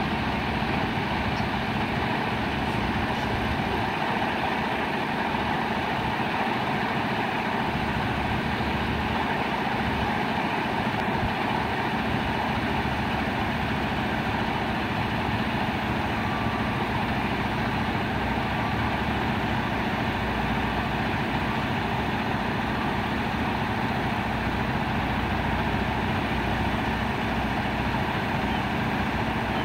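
Flatbed boom truck's diesel engine running steadily at a constant speed, powering its knuckle-boom crane as it lifts a load.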